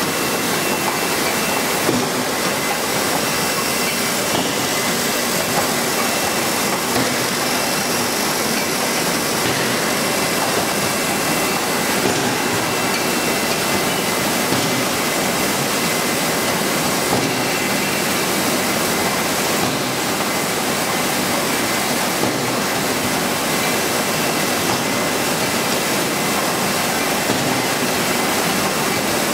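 Sparkling-wine disgorging line running: an even, steady machine noise like a hiss, with a faint high whine held through it.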